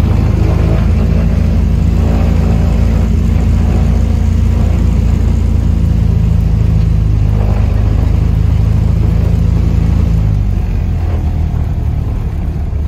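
Propeller aircraft's piston engines running, a loud steady drone heard from inside the small cabin as the plane taxis. About ten seconds in, the engine note drops and the drone eases off as the power comes back.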